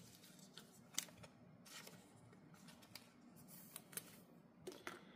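Near silence with a few faint clicks and rustles of trading cards being handled and sorted.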